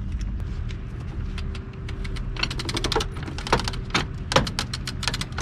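Sail furler's ratchet clicker clicking as the furler is wound to set its tension: a quick, uneven run of sharp clicks that grows denser and louder from about two seconds in, over a steady low rumble.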